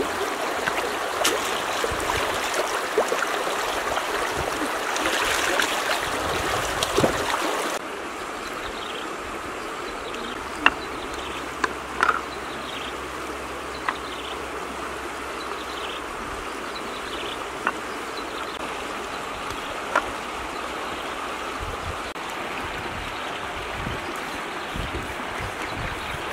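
Shallow river running over rocks, a steady rush of water that drops to a softer background about eight seconds in. A few sharp clicks and light knocks sound over it.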